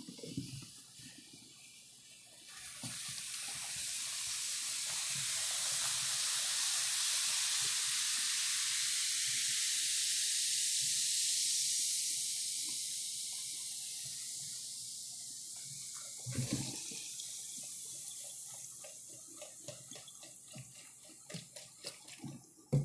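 Baking soda and vinegar fizzing inside a one-gallon plastic water bottle: a hiss of foaming bubbles that builds over a few seconds, holds, then slowly dies away as the reaction eases. A soft knock comes about two-thirds of the way through.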